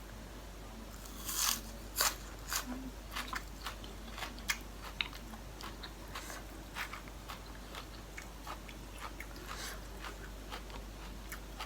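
Close-up crunching and chewing of food in the mouth: a run of crisp bites, loudest in the first few seconds, then softer chewing clicks.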